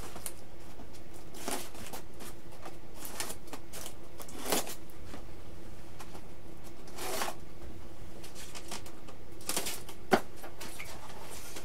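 Hands handling a styrofoam shipping box and its packing tape: a few short, scattered rustles and scrapes, with one sharp click about ten seconds in, over a low steady hum.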